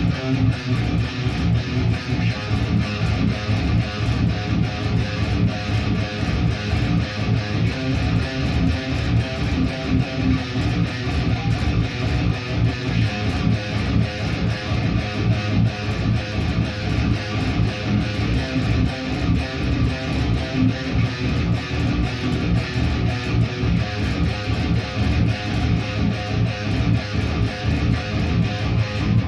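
Guitar being played continuously in practice, rapid notes at a steady loud level.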